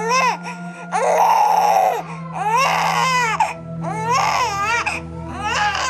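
Infant crying: five wailing cries about a second apart, each rising and falling in pitch, the second one longer and strained.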